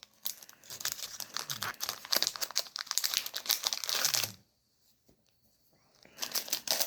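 Crinkling of a foil Yu-Gi-Oh booster pack wrapper being handled and opened. It runs for about four seconds, stops for nearly two, and starts again near the end.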